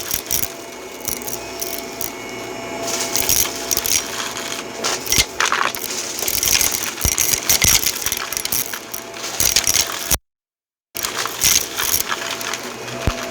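Vacuum cleaner running over carpet, with a steady motor tone under many sharp rattling clicks of small debris being sucked up; the sound cuts out briefly about ten seconds in.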